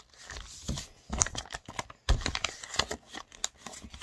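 A sheet of A4 paper rustling and crinkling in the hands as it is folded and creased into a paper airplane's wings, in irregular short crackles, with a thump about two seconds in.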